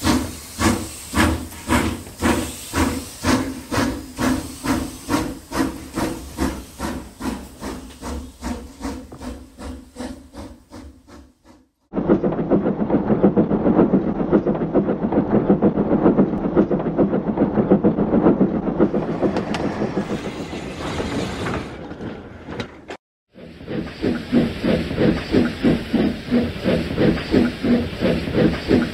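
Dubbed steam locomotive sound effects: rhythmic chuffing that slowly fades away over about twelve seconds, then an abrupt switch to a dense, steady run of chuffs and steam hiss, and after a brief cut, rhythmic chuffing again.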